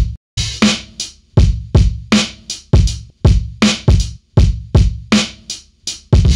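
Drum loop playing back, sharp kick and snare hits about three a second, after being run through a clipper set about 1 dB below the file's true peak, so it is clipped by at most 1 dB.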